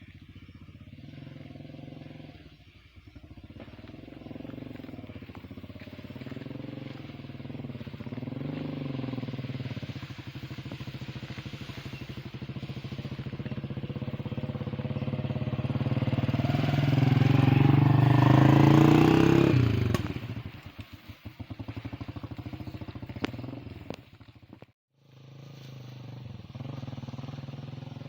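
Motorcycle engine running, getting steadily louder to a peak about two-thirds of the way through, then dropping away suddenly; after a brief break near the end the engine is heard again, quieter.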